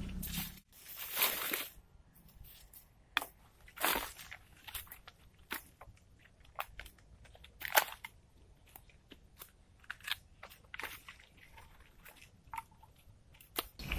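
Dry sticks and twigs snapping and cracking as firewood is handled and broken: a longer crunch about a second in, then a string of separate sharp snaps, the loudest about eight seconds in.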